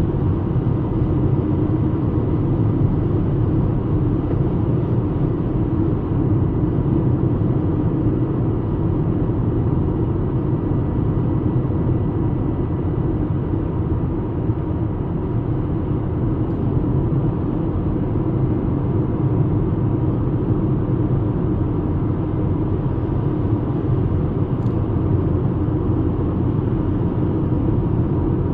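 Steady road and engine rumble of a VW Golf Mk5 cruising, heard from inside the cabin, with no changes in pace.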